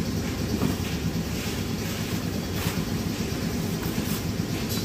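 Steady low mechanical rumble with a few faint clicks.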